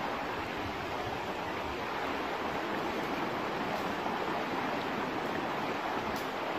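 Shallow stream flowing fast over rocks: a steady rush of water.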